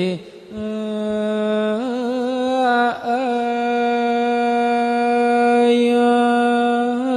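A solo voice chanting a Thai royal barge song (kap he ruea) in long, slow held notes, the pitch wavering at each change of note, with a short break for breath near the start and another about three seconds in.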